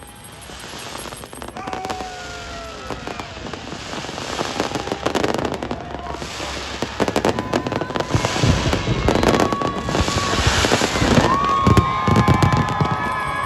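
New Year fireworks going off: dense crackling and hissing bursts that grow steadily louder, with deep booms joining about eight seconds in.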